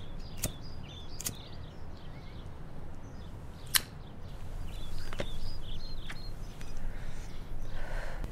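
Cigarette lighter being flicked to light a cigarette: a few sharp clicks spread over several seconds. Faint birds chirp in the background.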